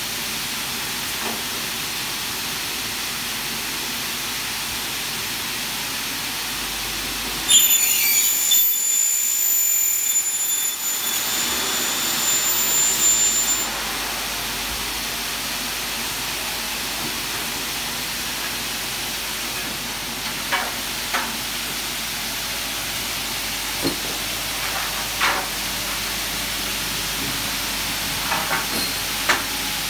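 Double-head aluminium cutting saw with 550 mm blades cutting through an aluminium profile for about six seconds, starting about seven seconds in, with a high-pitched ringing whine over a steady hiss. A few light clicks and knocks follow in the last ten seconds.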